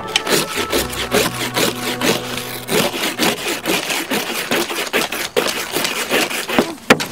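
Ice scraper scraping frost off a car windshield in quick repeated strokes, about three a second, with a sharper knock near the end.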